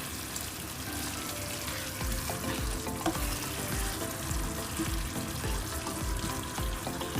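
Fried quail pieces sizzling in spiced masala in a pan while being stirred, with soft repeated knocks of the stirring from about two seconds in.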